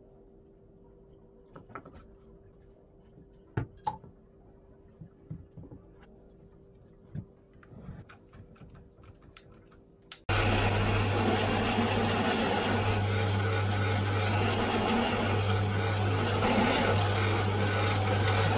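Faint knocks and clicks of plywood discs and bar clamps being handled over a low hum. About ten seconds in, this gives way suddenly to a drill press motor running steadily, its spindle turning with a Forstner-type bit just above a plywood disc.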